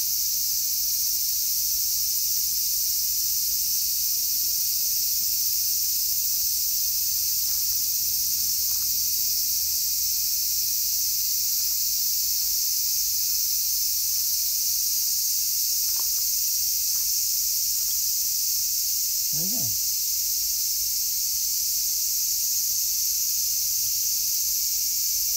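A steady, high-pitched chorus of insects with an unbroken hiss, with a few faint ticks in the middle and one short low sliding call about two thirds through.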